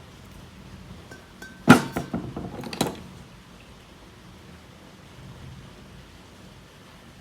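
Metal parts knocking and clinking: one sharp clank with a short ring, then a quick run of lighter clinks ending about a second later.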